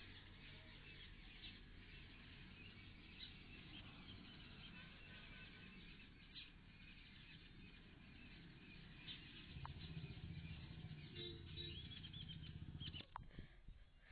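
Faint outdoor ambience: small birds chirping in the background over a low rumble, which grows louder about ten seconds in, with a sharp click near the end.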